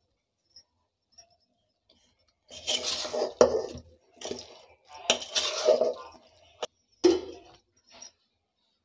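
A metal ladle scrapes and clinks against a metal pot as thick brinjal curry is stirred and scooped out. It starts about two and a half seconds in, with several sharp clinks.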